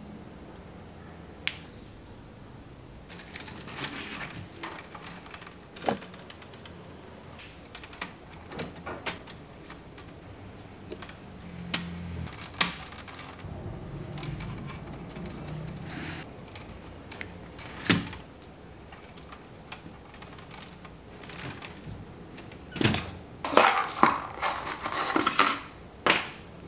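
Hard plastic parts clicking and tapping as LEGO Technic pieces and a 3D-printed servo mount are fitted together by hand: scattered single clicks, then a quick run of clattering near the end.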